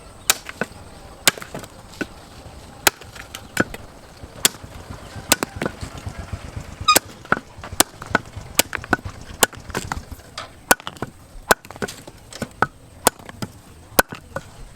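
Kukri knife chopping into a palm tree branch: a long run of sharp, irregular chops, about one to two a second.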